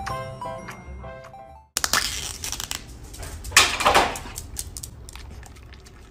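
Background music with bell-like notes stops abruptly, then the peel-off lid of a small plastic cup is torn back with loud crinkling and crackling, loudest about two seconds in and again a second and a half later, fading toward the end.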